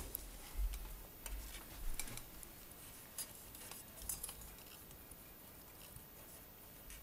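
Faint handling noise from a hand-held camera being moved about: scattered light clicks and ticks, with low bumps in the first two seconds.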